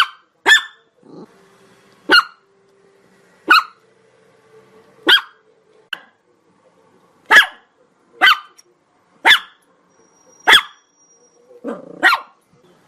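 Chihuahua barking: about ten single short, sharp barks at uneven gaps of roughly a second or so, with a brief lower, rough sound just before the last bark.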